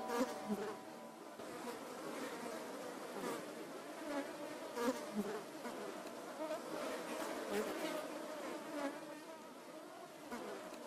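Quiet buzzing of flies, wavering up and down in pitch, with scattered clicks and crackles and no beat.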